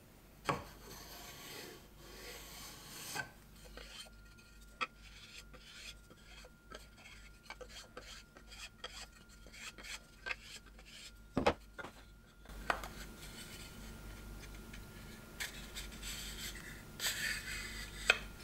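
Hand work on small wooden parts: scraping and rasping strokes on wood, with light clicks and knocks as the pieces are handled and fitted together, and a few sharper knocks near the end.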